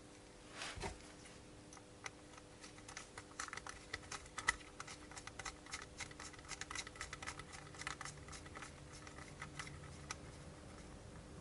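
Faint, rapid, irregular clicking and tapping of small hardware worked by hand: an M3 machine screw being fitted and tightened to fasten a 3D printer's end-stop limit switch. A soft thump about a second in.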